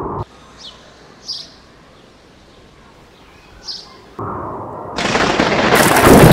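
Sound effects. A low rushing wind-like noise cuts off abruptly, followed by three short bird chirps over quiet ambience. About four seconds in, a low rumble sets in, and a second later a loud crack of thunder crashes in and keeps building.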